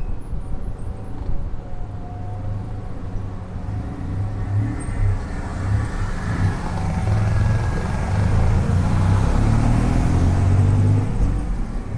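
Tuk-tuk engine running on the move, getting louder and rising a little in pitch over the second half as it picks up speed.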